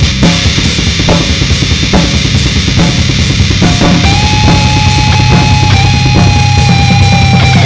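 Heavy metal music: a drum kit beating over a low bass, then a long held high note from about four seconds in.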